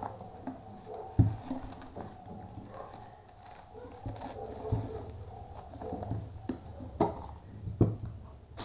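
Hands handling and pressing a fabric clutch on a table as it is marked with a pen, with soft rustling and a few sharp knocks and taps, the loudest near the end.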